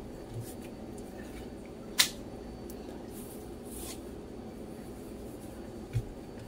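Hands working empanada dough discs on a plastic cutting board: one sharp tap about two seconds in, two soft brushing sounds a little later and a dull thump near the end, over a steady low hum.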